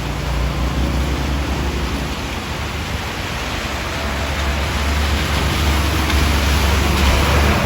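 Steady rain hissing, with a low rumble that grows stronger in the second half.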